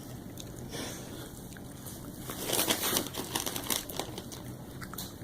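Bag of dill pickle potato chips crinkling, with short crackling crunches; louder for a moment a little past the middle.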